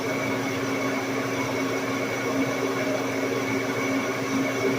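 Lodge & Shipley 1610 Power Turn lathe running at about 430 RPM while boring a heavy 100-thousandths-deep cut in a large ring. It makes a steady machine drone with a constant low hum and a high whine.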